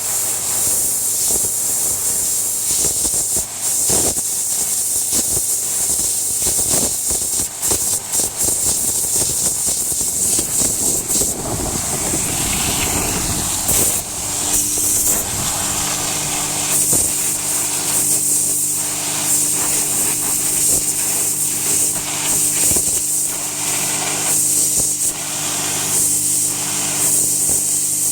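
The high-pressure water jet of a 3000 psi Landa pressure washer, hissing steadily as it cuts into a piece of hardwood. About halfway through, a steady machine hum comes in under the spray.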